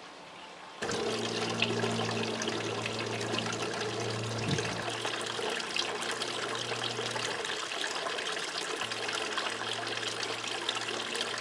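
A stone wall fountain's water splashing and trickling from its spouts into the basin, starting suddenly about a second in. A low steady hum runs underneath and drops out for a moment past the middle.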